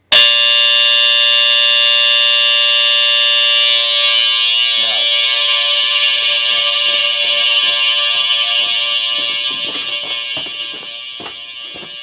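Smoke detector alarm set off by smoke, sounding one continuous shrill tone without breaks. It starts suddenly and grows fainter over the last few seconds. Soft knocks of handling run underneath from about halfway.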